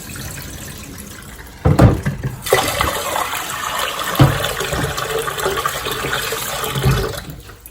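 Starchy rinse water being poured off washed rice into a sink, splashing steadily. There are dull knocks of the rice container about two seconds in, about four seconds in and near the end; the first is the loudest.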